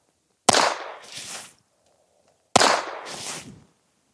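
Two shots from a Ruger Mark IV 22/45 Lite pistol firing Aguila subsonic .22LR, about two seconds apart. Each is a sharp crack that trails off over about a second with a second, fainter swell.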